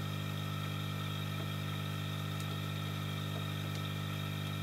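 Steady low electrical hum with several evenly spaced overtones, holding level throughout.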